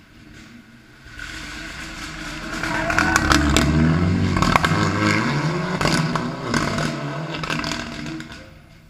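Rally car approaching, then braking and accelerating hard out of a gravel hairpin, its engine note falling and rising, with a few sharp cracks near the middle, then fading away as it drives off.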